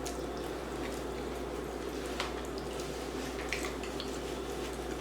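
Eating sounds: a person chewing crispy baked chicken wings, with a few faint scattered clicks and wet mouth noises over a steady low background hum.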